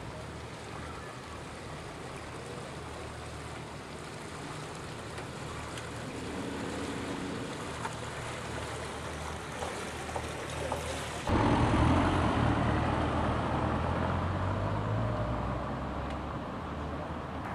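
Motor cruiser's engine running at low speed as the boat comes up the river and passes close by: a steady low hum with the wash of water. About eleven seconds in, a louder low rumble starts suddenly and then slowly fades.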